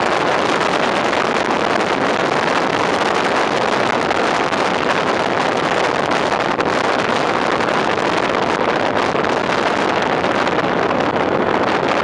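Steady rush of wind and road noise on a microphone mounted outside the cab of a moving fire engine (pump tender), even and unbroken, with no siren tone heard.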